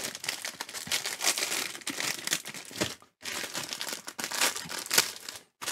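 Plastic snack wrapper crinkling and rustling in quick, irregular crackles as it is handled and opened, stopping briefly twice.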